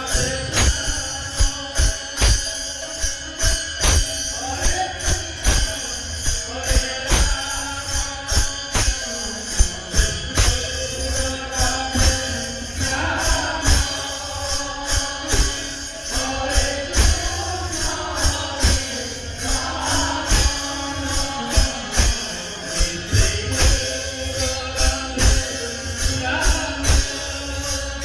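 Devotional kirtan music: a drum keeps a steady beat under jingling percussion and held instrumental tones, with a voice singing a chant-like line through the middle stretch.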